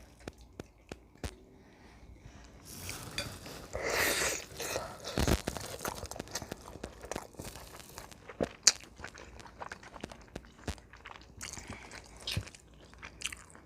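Close-miked eating: a person biting and chewing food, with many small sharp mouth clicks and smacks, and a dull thump about five seconds in.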